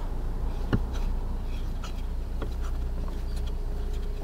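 Light clicks and short scrapes of a fastener being unscrewed by hand from the plastic lower glovebox cover of an Audi A4 B8, over a steady low rumble.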